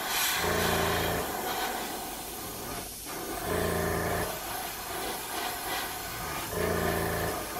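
Airbrush spraying paint onto a crankbait, a steady hiss of air and paint. A low steady hum comes in three times, about three seconds apart.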